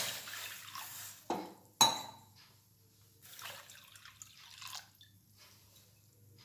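Water poured into a cooking pan tailing off, then two sharp clinks of glass or metal against the pan, the second louder and ringing briefly, followed by faint drips and small knocks.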